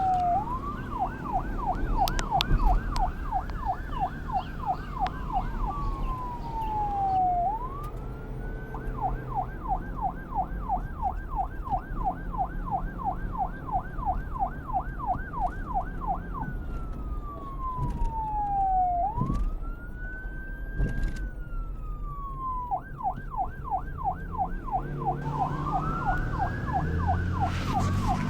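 Electronic police car siren switching between a slow rising-and-falling wail and a rapid yelp of about three sweeps a second, with long falling glides between them. A low rumble runs beneath.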